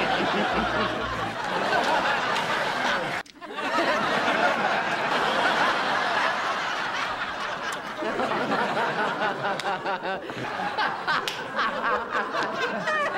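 A woman laughing and snickering in a series of short clips cut together, with an abrupt break about three seconds in.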